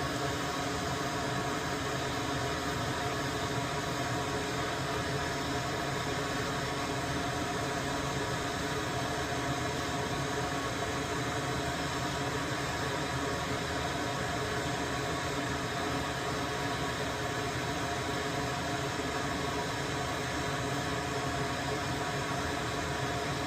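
A small electric motor running steadily: an even whir with a constant hum that does not change.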